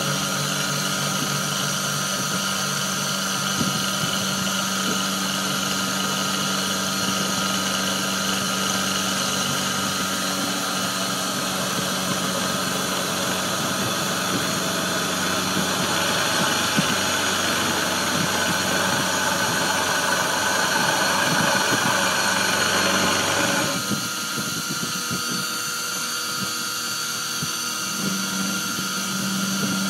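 Sherline benchtop CNC milling machine running, a steady mechanical whine with several held tones. A higher, brighter part of the sound builds up and then stops abruptly about 24 seconds in, while the machine keeps running.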